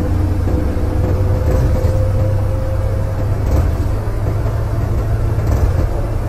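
Hino AK8 bus engine running steadily: a low drone with road noise. A faint higher whine fades out about three seconds in.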